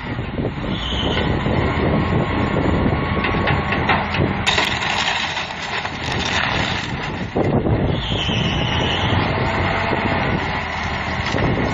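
Front-end loader's diesel engine running under load as it pushes into and crushes half of a mobile home, with repeated cracking and crunching of the home's walls and framing. The crunching gets louder and harsher for a couple of seconds near the middle.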